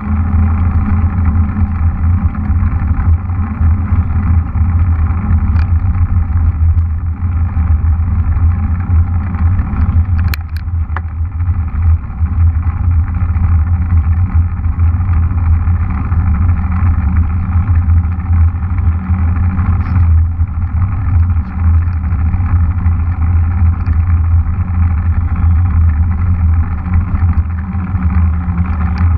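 Mountain bike rolling along a paved road: a steady, loud rumble of wind and tyre noise on the camera's microphone, with one sharp click about ten seconds in.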